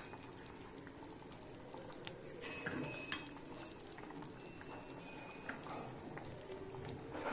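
Thick chicken gravy simmering faintly in a frying pan, with a few light taps of a spatula and spoon against the pan.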